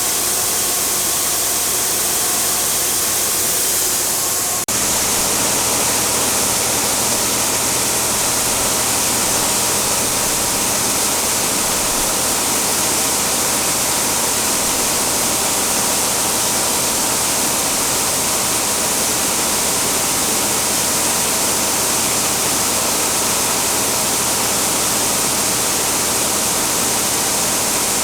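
Grain dryer running: a loud, steady rushing noise with faint humming tones underneath. About four and a half seconds in it dips briefly, then carries on with a stronger low hum.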